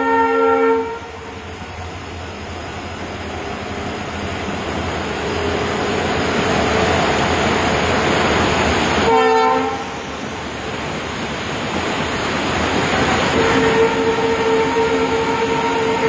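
A rail vehicle's horn, sounding one multi-tone note in three blasts: a long blast that cuts off about a second in, a short one around nine seconds in, and a longer one near the end. A loud, even rushing noise runs beneath and swells between the blasts.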